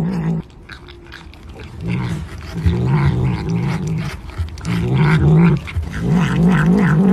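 A cat growling low and wavering in several stretches while licking and eating a treat from a cup held in its paws, with wet licking and smacking noises in between: the guarding growl of a cat protecting its food. The growl breaks off about half a second in and resumes about two seconds in.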